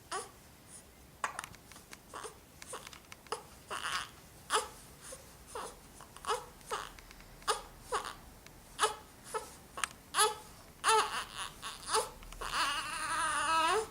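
Four-week-old baby hiccuping over and over: short, sharp, squeaky hiccups with a quick drop in pitch, about one and a half a second. Near the end comes a longer, wavering cry.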